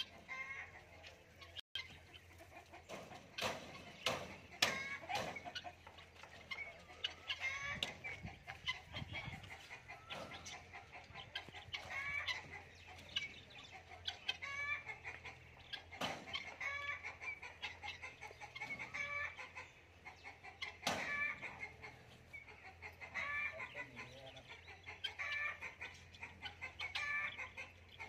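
Caged fowl clucking over and over in short calls about once a second, agitated by a lizard in their enclosure. A few sharp knocks come through as well, the loudest about four and a half seconds in.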